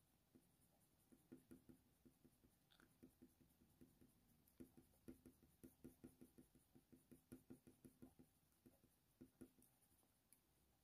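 Faint, quick strokes of a colour pencil on heavy watercolour paper, a rapid run of small scratchy ticks, about four a second at their busiest.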